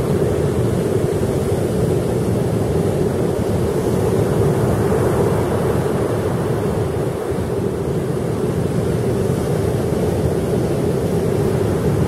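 Sea surf breaking and washing up the shore, a steady rush of waves, with wind buffeting the microphone.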